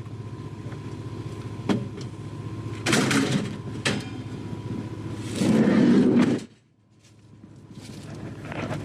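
Minivan engine idling steadily, with a few knocks and clunks and a louder burst of noise about five and a half seconds in. The idle then cuts out abruptly.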